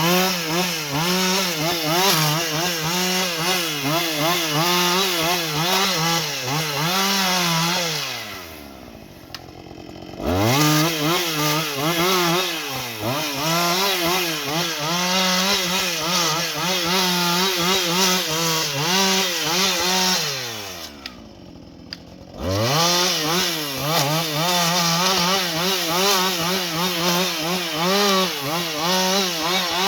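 Husqvarna 562XP two-stroke chainsaw limbing a tree: it runs at high revs with its pitch wavering under load. Twice, about eight and about twenty-one seconds in, it drops back to idle for a second or two, then revs up again.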